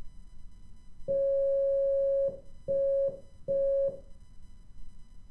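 Morse code tone sending a dash and two dots, the letter D: one long beep followed by two short ones, all at the same steady pitch.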